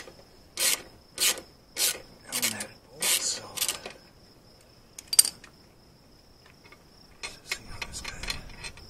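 Socket ratchet wrench swung back and forth to unscrew a motorcycle's passenger-peg bracket bolt, its pawl rasping on each stroke. There are about six strokes some 0.6 s apart, stopping about four seconds in, then one sharp click and a few faint clicks of the parts being handled.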